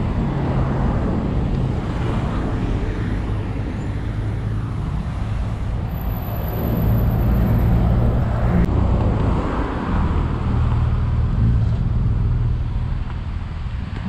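Road traffic: motor vehicle engines running close by, a steady low hum with road noise that grows louder for a few seconds in the middle.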